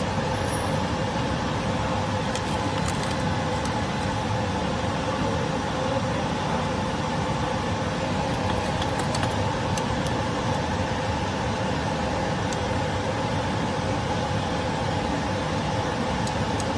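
Steady hum of a running phone-screen laminating machine, holding two constant tones throughout. A few faint light clicks of the metal mould and glass being handled.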